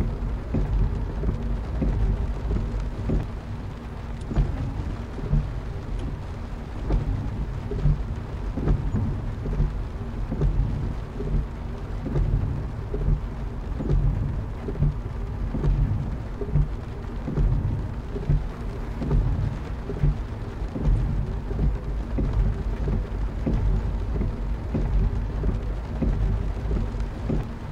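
Steady heavy rain hitting a car window, many irregular drops over a deep constant rumble.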